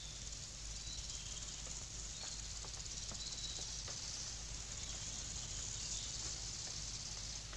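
Steady high hiss over a low hum, with a few faint scattered ticks.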